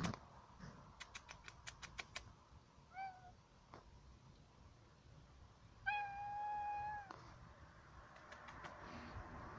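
A longhaired grey-and-white cat meowing: a short meow about three seconds in, then a longer meow of about a second held at a steady pitch. A quick run of sharp clicks comes a second or so in, with a few more near the end.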